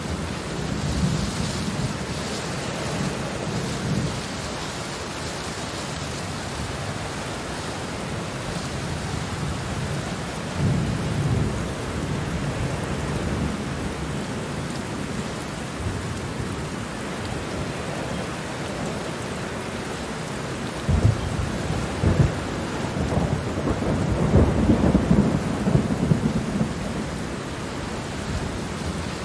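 Steady rain falling, with low rolls of thunder swelling in: a short rumble about a second in, another about eleven seconds in, and a longer, louder rumble in the second half with a couple of sharp jolts.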